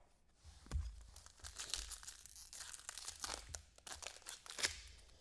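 Trading-card pack wrappers crinkling and cards being handled: a run of short, irregular crackles and rustles.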